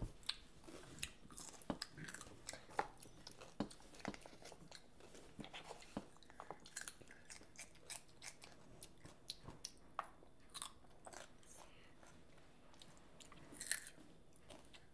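Children biting and chewing crisp cucumber slices and noodles: irregular soft crunches and wet mouth clicks, with a louder crunch near the end.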